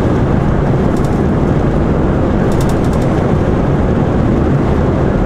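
Heavy goods lorry driving at speed: steady engine, tyre and road noise.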